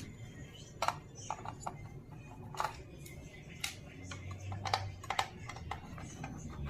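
Irregular light clicks and taps of hand tools and small parts being handled while working on an induction cooker's circuit board.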